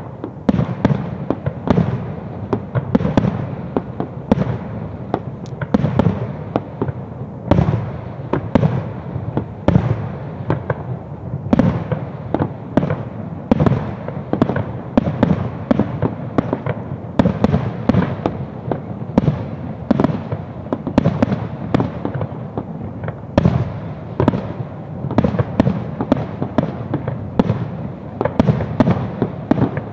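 Aerial fireworks display: shells bursting in a dense, unbroken barrage, several bangs a second.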